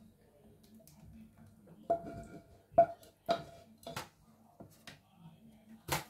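A saucepan and utensil knocking against a baking dish as sauce is scraped out of the pan. There are about five knocks starting about two seconds in, the first few with a short ringing note, then a sharper click near the end.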